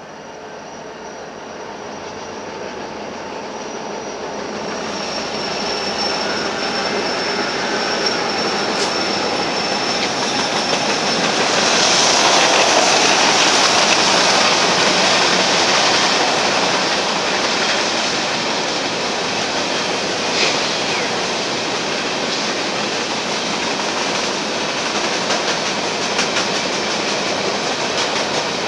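Union Pacific freight train passing: the diesel locomotives grow steadily louder to a peak about halfway through, with a thin high whine as they approach, then a long string of covered hopper cars rolls by in a steady rumble with faint wheel clicks.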